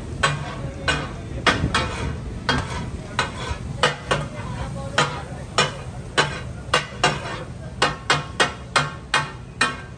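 Metal spatulas clanging and chopping on a large tawa griddle in katakat style, about two or three strikes a second in an uneven rhythm, over the sizzle of frying fish.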